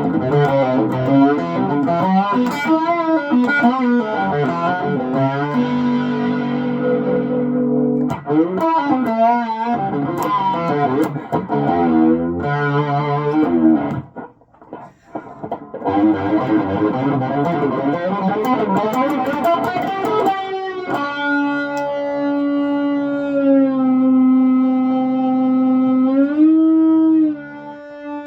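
Fernandes fretless electric guitar played through distortion, notes sliding and wavering in wide vibrato with a short break about halfway. In the last third one note is held on at even level by the guitar's sustainer, then slides up and stops.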